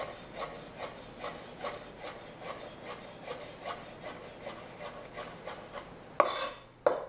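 Chef's knife mincing pickled jalapeños on a wooden cutting board: a steady run of quick, soft knocks of the blade on the board, about four or five a second. Two louder knocks come near the end.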